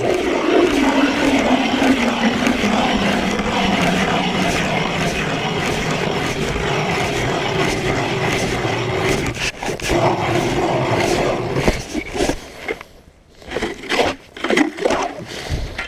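Hand-cranked ice auger boring through soft, loose ice: a steady grinding scrape for about twelve seconds, then it stops, followed by a few short knocks.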